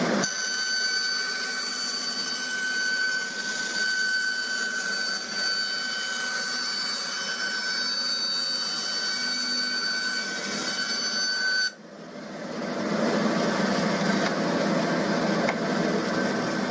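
Bandsaw running and cutting a thin wooden sheet: a steady high whine over the running noise. The whine stops abruptly about twelve seconds in, and the saw runs on.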